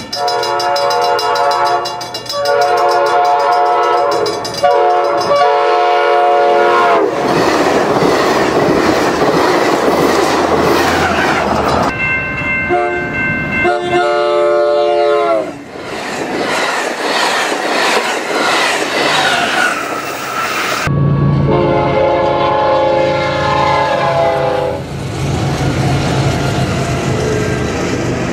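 Diesel locomotive horns sounding for grade crossings over the running noise of passing trains and clattering wheels. The first train blows long, long, short, long. A later horn drops in pitch as the locomotive passes.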